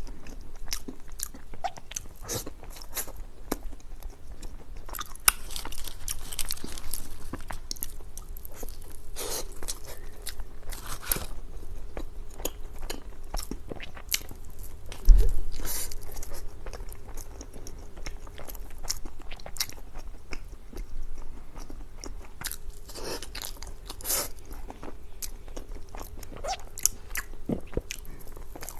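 A person biting and chewing Chinese dessert pastries, with many short clicks and crunches of mouth sounds. A single sudden low thump about fifteen seconds in.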